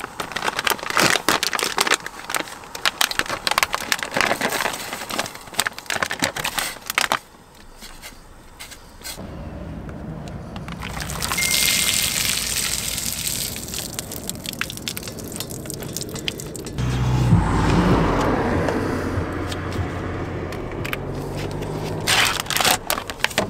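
Plastic packet rustling and crackling as tortellini are tipped into a pot. After that comes the steady hiss and bubbling of water boiling on a portable cartridge gas stove, which grows louder with a low rumble in the last few seconds.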